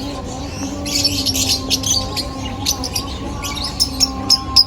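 Many caged birds chirping and squawking together in a dense, overlapping chorus, with a few sharp, louder calls near the end, over a steady low hum.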